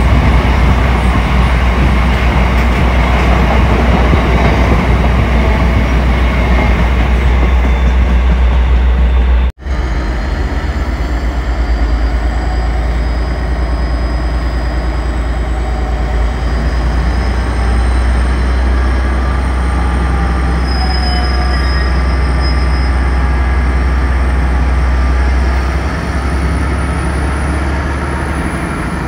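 Freight train passing, a steady heavy rumble of wagons on the rails, with faint thin wheel squeals in the second half. The sound cuts out for an instant about ten seconds in.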